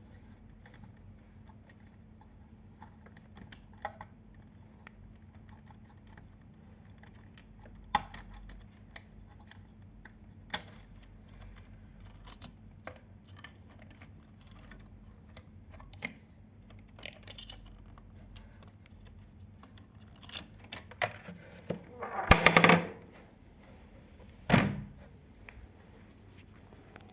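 Scattered clicks and knocks of hands and tools on a Revox A77 reel-to-reel tape recorder's casing as it is opened from the back, with a louder scraping clatter about 22 seconds in and a single hard knock soon after.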